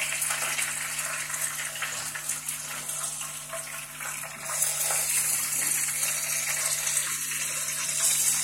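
Chicken pakoras sizzling in hot oil in a frying pan: a steady hiss that gets a little louder about halfway through.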